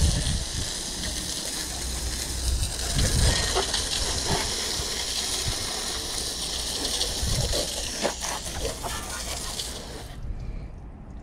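Water jetting from a garden hose spray nozzle onto a lawn mower's deck and engine and splashing off the pavement: a steady hiss of spray that stops about ten seconds in.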